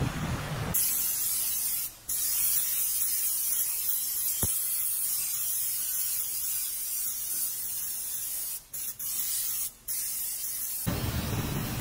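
Aerosol spray can hissing as it sprays. The spray starts about a second in and runs in long bursts, with a short break about two seconds in and three brief breaks near the end, before stopping.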